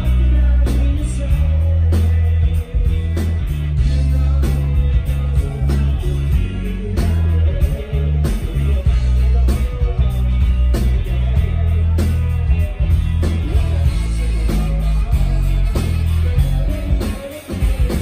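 Live rock band playing loud through a PA: electric guitars over heavy bass and a steady drum beat, dropping back briefly near the end.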